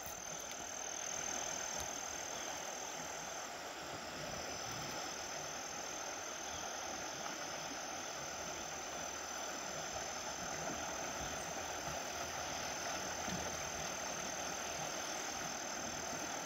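Shallow creek riffle: water running steadily over rocks.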